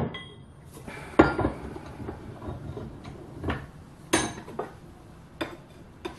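Lengths of steel bar and tube clinking and knocking against one another, the steel bench top and a bench vise as they are picked up and set down. The loudest knock comes about a second in, followed by several lighter ones.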